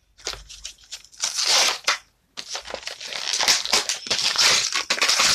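Plastic toy packaging crinkling and crackling in bursts as a Tech Deck fingerboard package is handled and opened. It breaks off briefly about two seconds in, then picks up again and keeps going.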